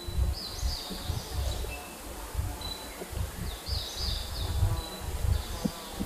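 Outdoor forest ambience: wind rumbling on the microphone in uneven gusts, with short high chirping calls from wild creatures repeating every second or so.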